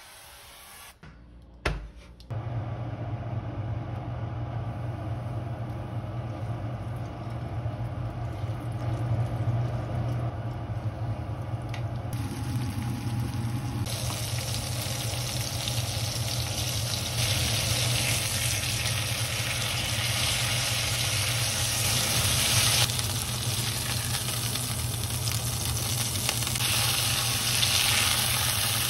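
Floured chicken cutlets sizzling as they pan-fry in oil and butter in a frying pan. The sizzle grows clearly louder about halfway through, over a steady low hum, with a sharp click about two seconds in.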